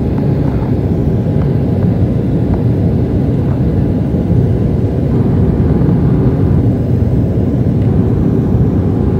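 Cabin noise of an airliner in flight: engines and rushing air as a loud, steady low rumble.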